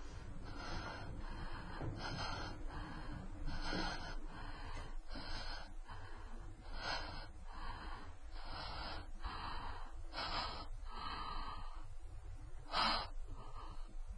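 A person breathing heavily and raggedly, with quick gasping breaths in and out, about one a second; one sharper gasp comes near the end.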